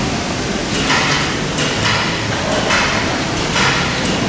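Car assembly-line workshop noise: a steady mechanical din with short, sharp noisy bursts from tools recurring about once a second.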